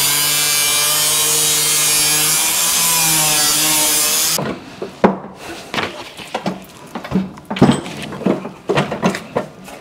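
An angle grinder cuts into sheet steel with a steady, loud whine and grinding noise, then stops abruptly about four and a half seconds in. After that come scattered knocks and clunks of sheet steel being handled at a box and pan folder.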